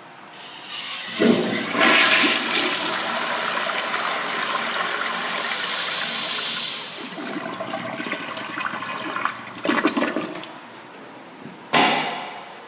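Flushometer valve on a commercial toilet flushing. A sharp onset about a second in leads to a loud rushing hiss of water into the bowl for about five seconds. This then eases to a quieter flow as the valve shuts off. Near the end there are a few short sharp clattering knocks.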